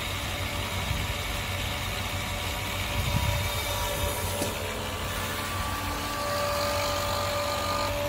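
Transformer oil filter machine running with its vacuum pump and outlet pump on, filtration under way: a steady motor hum, with a steady whine joining about six seconds in.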